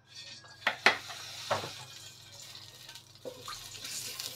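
Cooking oil poured into a hot wok, hissing and sizzling. A wooden spatula knocks sharply against the wok several times as it spreads the oil.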